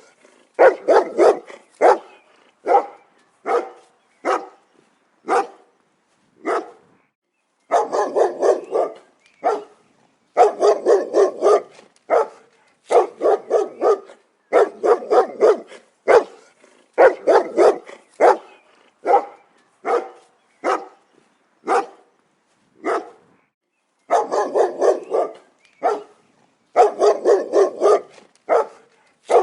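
A dog barking repeatedly, in quick runs of several barks broken by short pauses and single barks.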